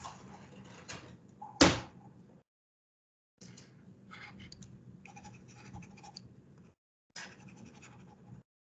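Faint room noise from the lecturer's microphone that cuts in and out, with one sharp thump about one and a half seconds in.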